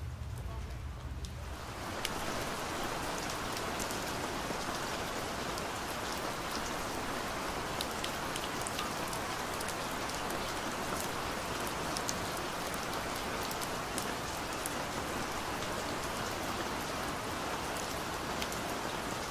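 Steady rain with scattered sharp drop ticks, coming in about a second and a half in after a brief low hum.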